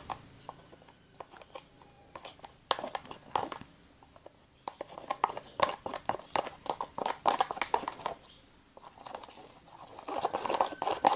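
Slime mixture being stirred by hand in a small container, the stirring utensil clicking and tapping irregularly against the sides, the glue, salt water and detergent mix thickening as it is stirred.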